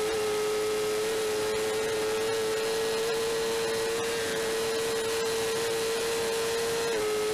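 BMW S1000RR superbike's inline-four engine held at high revs flat out on a straight: a steady, high-pitched whine that climbs slowly, then drops slightly near the end, over wind rushing past the onboard microphone.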